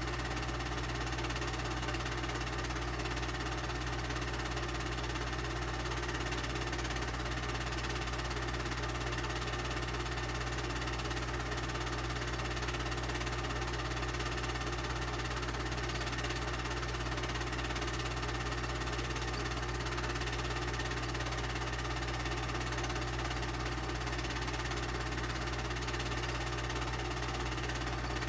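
Film projector running during the transfer of a silent home-movie reel: a steady, unbroken mechanical whirr with a low hum underneath.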